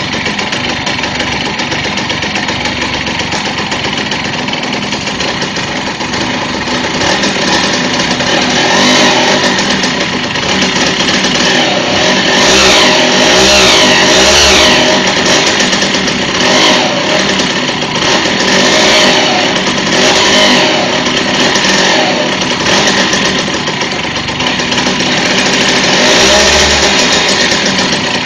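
Simson single-cylinder two-stroke moped engine running, its speed rising and falling several times, with a high squeal whose pitch follows the engine speed. The owner traces the squeal to the clutch or primary drive: it comes only with a gear engaged, not in neutral.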